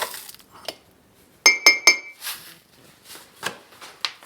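A spoon clinks against a coffee mug three times in quick succession about a second and a half in, each strike ringing briefly, followed by a few softer knocks.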